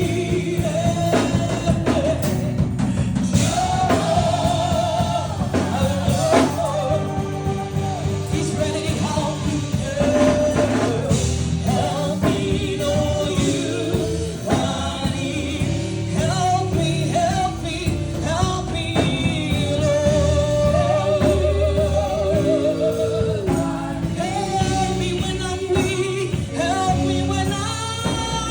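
Live gospel worship music: singers with vibrato over a band with drum kit, steady throughout.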